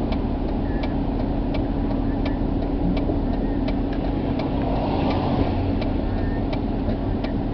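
Car engine running, heard from inside the cabin as a steady hum. A sharp tick repeats about every 0.7 seconds, the rhythm of a turn-signal indicator clicking.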